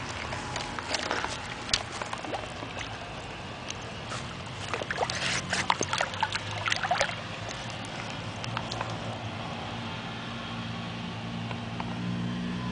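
Water splashing as a hooked peacock bass thrashes in the shallows while it is brought in on the line, in two spells of sharp splashes. A steady low motor hum runs underneath and grows a little louder near the end.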